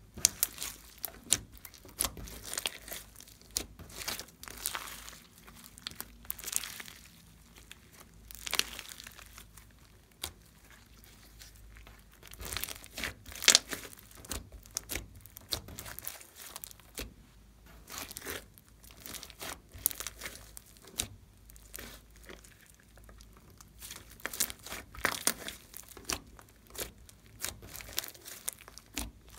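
Glossy slime mixed with foam and glitter being kneaded and squeezed by hand, giving irregular crackling and popping clicks.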